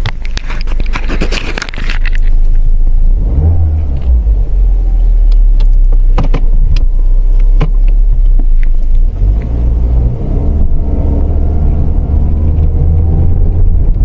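Toyota C-HR heard from inside the cabin while driving: a steady low engine and road rumble, with the engine note rising in places as it accelerates and a few short sharp clicks. The car is on a test drive to catch an intermittent clunk that comes when the throttle is pressed after braking.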